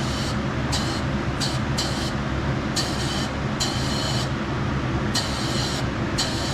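Powder coating spray gun fired in about eight short bursts of air hiss, over a steady mechanical hum.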